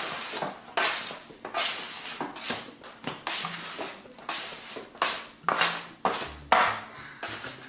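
Plastic bench scraper scraping across a wooden tabletop in a dozen or so quick strokes as a ball of sourdough dough is pushed and rounded.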